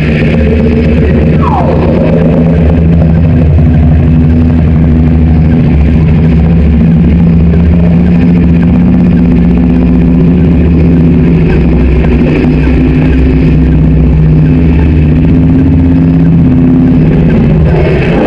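Boosted, remixed Carcharodontosaurus creature sound effect: a long, loud, low rumbling drone held at a steady pitch. A short falling whine cuts across it about a second and a half in.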